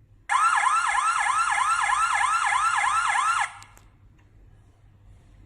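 Combustible-gas alarm detector sounding its electronic siren alarm: a fast series of rising whoops, about three a second, starting a moment in and cutting off abruptly after about three seconds.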